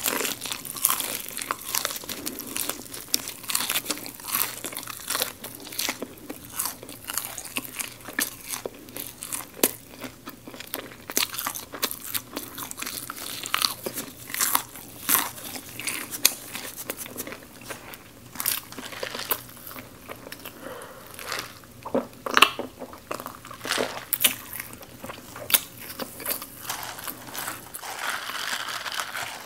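Close-miked biting and chewing of crispy-coated garlic fried chicken: a dense run of crackling crunches, uneven in rhythm.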